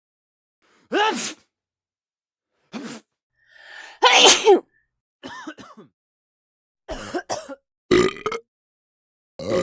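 A person sneezing, several separate sneezes a second or two apart. The loudest, about four seconds in, comes after a rising intake of breath. Shorter, sharper bursts follow in the last three seconds.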